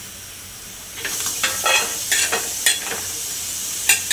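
Metal spatula scraping dry-roasted coconut pieces across a hot iron tawa and off into a steel plate. Quick scrapes start about a second in and go on over a steady hiss.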